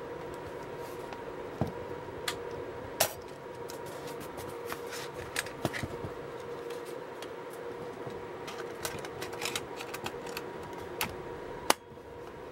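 Sony MZ-NE410 MiniDisc Walkman being opened and shut by hand: scattered small plastic clicks and taps as the OPEN slide releases the lid and the lid and disc mechanism are handled, ending with a sharp click as the lid is pressed shut near the end. A steady hum runs underneath.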